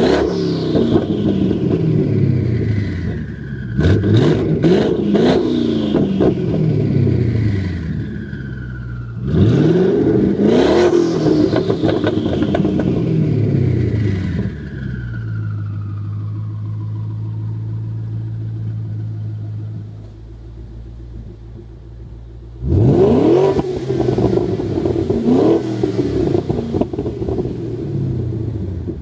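Twin-turbocharged 5.0 V8 of a 2011 Mustang GT, exhaust cutouts open, revved in four sets of quick throttle blips and dropping back to a lumpy idle between them. After each set a high whistle falls away as the turbos spool down.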